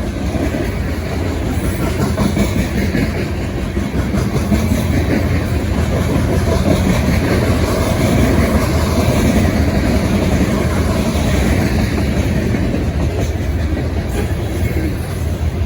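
Freight train rolling past, its cars clattering over the rail joints in a steady, continuous rumble, taken for an empty coal train.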